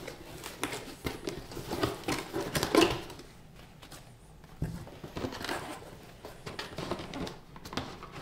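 Cardboard box opened by hand: flaps pulled open and the cardboard scraping and rustling in irregular small knocks and scuffs, with a quieter pause midway.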